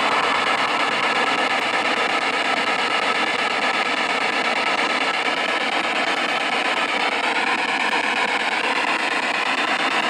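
Spirit box (a radio scanner sweeping through stations) playing a steady hiss of static through a small handheld speaker, with a faint wavering tone drifting through it about seven seconds in.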